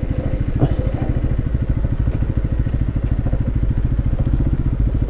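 Motorcycle engine running steadily while the bike is ridden along, its exhaust beats making a fast, even pulse.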